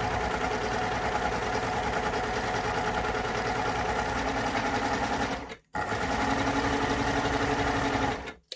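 Baby Lock Euphoria coverstitch machine running steadily while sewing a narrow cover stitch, with a fast, even stitching rhythm. It stops for a moment about two-thirds of the way in, runs again, and stops just before the end.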